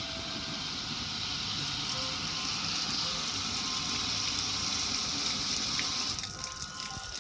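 Water streaming and splashing steadily over the metal lid and control panel of a gas grill, easing off about six seconds in.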